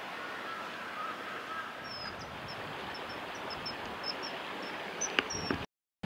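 Common kingfisher calling: a quick run of short, high, thin notes over a steady outdoor hiss. The sound cuts out suddenly just before the end.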